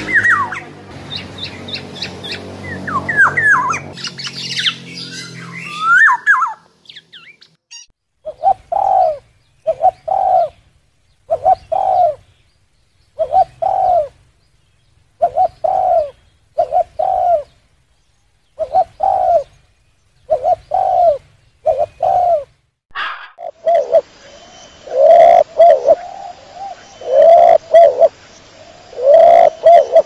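A black-naped oriole's whistled calls for the first few seconds. Then a spotted dove cooing in repeated phrases about every one and a half seconds. Near the end, rock doves cooing over a steady hiss.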